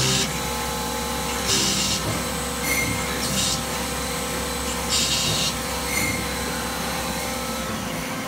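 Hardinge Conquest T-42 CNC turning center running a part program: a steady machine hum with short, high hissing bursts about every one and a half seconds as the tooling works the part. Near the end the low hum drops away while the turret moves.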